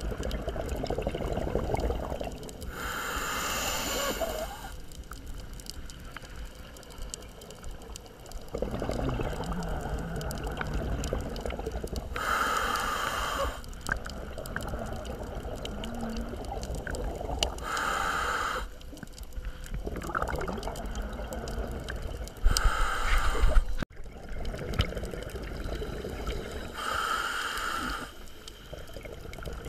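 Scuba diver breathing through a regulator underwater: five short hissing inhalations a few seconds apart, each followed by a longer stretch of gurgling exhaled bubbles.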